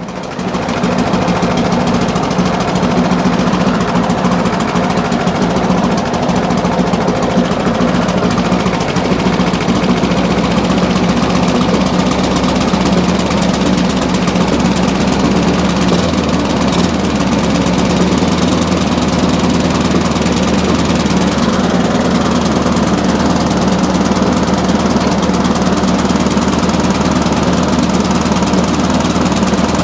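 Briggs & Stratton Classic flathead engine on a push lawn mower running steadily, held at a higher speed by hand at the throttle linkage from about a second in. It still runs unhappily at the higher speed, which the mechanic takes as a sign that the carburettor needs cleaning and possibly a new diaphragm and gasket.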